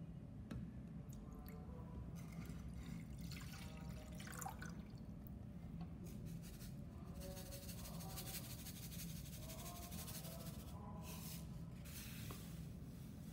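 Liquid being poured into a metal saucepan: a faint trickling splash, from about two seconds in until near eleven seconds.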